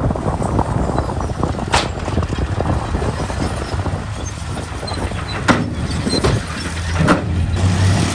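Heavy diesel earthmoving machinery running under load, with a steady engine rumble and a dense crunching rattle. Four sharp metallic clanks or squeaks stand out, and the engine grows louder and steadier near the end.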